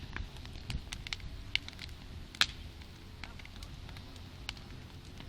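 Campfire burning and crackling, with irregular sharp pops over a low, steady rumble; the loudest pop comes about two and a half seconds in.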